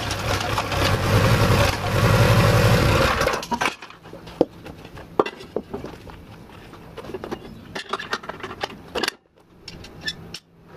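Small petrol engine powering a homemade backhoe running steadily with a low hum, then cutting off abruptly about three and a half seconds in. After that come scattered light clicks and knocks.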